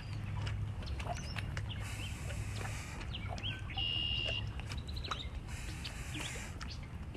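Wild birds chirping and calling, with many short, quick chirps scattered throughout and one longer whistled note about four seconds in, over a steady low rumble.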